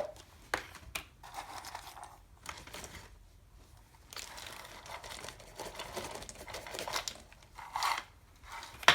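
Plastic packaging being handled and crinkled, with a few sharp clicks near the start and a longer stretch of rustling in the second half.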